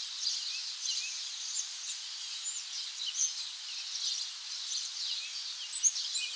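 Birds singing in woodland, with many short, high chirps and trills from several birds overlapping, over a faint steady hiss.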